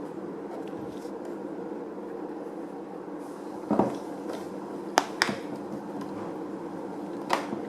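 Steady low machine hum with a few sharp clicks and knocks of objects being handled, one about four seconds in, two close together about a second later and one near the end.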